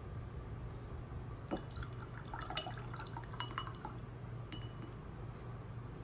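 A paintbrush rinsed in a glass jar of water: a few small splashes and several light clinks of the brush against the glass, spread over a couple of seconds.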